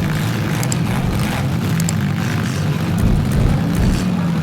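Demolition-derby compact cars' engines running together, a steady loud drone with a few faint sharp clicks over it.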